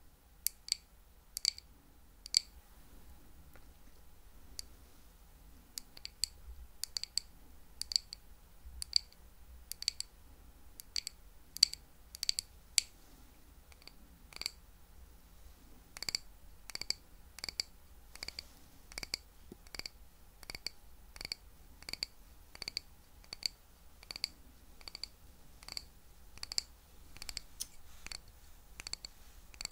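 Close-miked chewing of a crunchy sweet snack: sharp, crisp crunches, scattered at first, then coming steadily at about two a second from about halfway.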